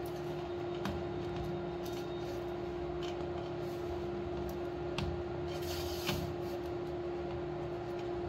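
Hands kneading soft, wet flour dough in an aluminium bowl: faint squishing and rubbing, with a few light clicks, over a steady hum.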